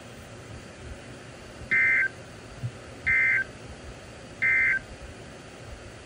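Three short bursts of SAME digital data tones, a warble between two pitches, from a NOAA weather radio's speaker, about 1.4 s apart. This is the end-of-message code that closes an Emergency Alert System severe thunderstorm warning broadcast.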